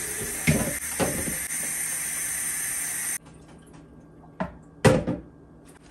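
Kitchen tap running in a steady hiss, with a couple of knocks, shut off abruptly about three seconds in; a sharp knock follows near the end.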